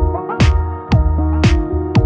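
Background electronic music with a steady drum beat, about two hits a second, over a bass line and held synth notes.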